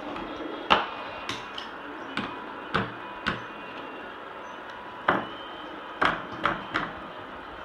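Toys being handled: about ten sharp clicks and knocks at uneven intervals, with a pause of over a second in the middle.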